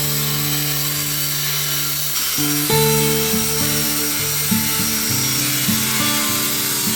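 Background music of changing pitched notes, with a steady hiss of noise running under it.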